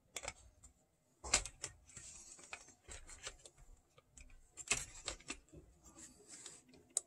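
Faint, irregular clicks and taps of hands handling a cassette deck's plastic tape mechanism and circuit board while fitting new drive belts. Two louder knocks come a little over a second in and again near five seconds in.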